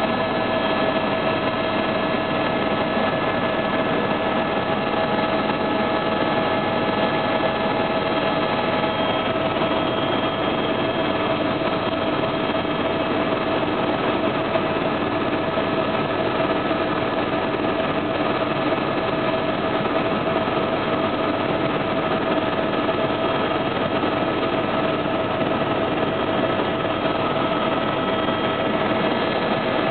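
Steady drone of a light helicopter in flight, heard inside its cabin: a constant noise with several unchanging whining tones over it.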